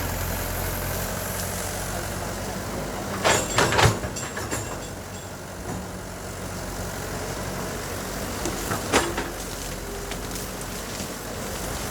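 Heavy diesel machinery engine running steadily, with a cluster of sharp clanks a few seconds in and another near the end.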